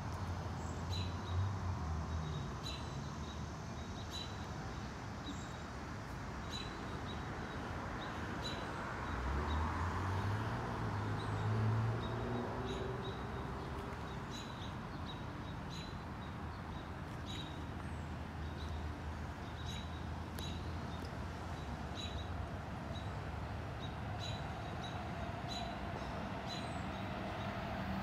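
Outdoor ambience: a steady hum of distant traffic, with short high chirps repeating every second or so. About nine seconds in, a road vehicle's engine rises in pitch as it passes, then fades.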